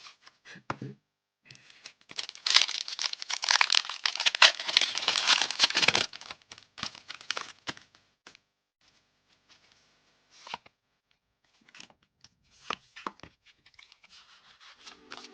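A Pokémon card booster pack's foil wrapper being torn open and crinkled, starting about a second and a half in and lasting about four seconds. After that come scattered light clicks and rustles of cards and packaging being handled.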